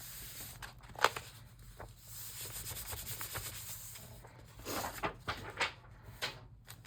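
Paper and journal pages being rubbed and handled on a desk, with a sharp tap about a second in and a few more knocks a little before the end. A faint steady low hum runs underneath.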